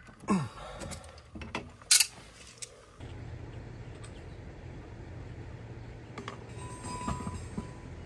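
A few metallic clicks and clinks of wrenches on a brass flare fitting as it is tightened, one loud click about two seconds in. About three seconds in this gives way to a steady low outdoor hum with occasional small clicks of hose and valve handling.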